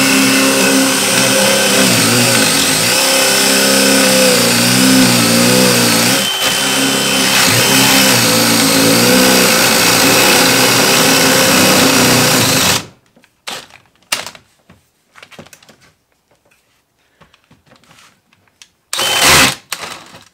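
DeWalt DCD996 brushless hammer drill in drill mode at its top speed, boring a large spade bit into a wooden post: a loud, steady motor whine that sags in pitch several times as the bit loads up, then cuts off suddenly about thirteen seconds in. After that there are only faint clicks, and a short burst of the drill shortly before the end.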